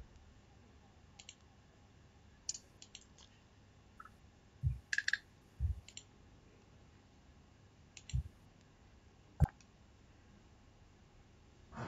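Scattered computer mouse clicks and a few soft knocks, over faint room hiss, with one sharper click near the end.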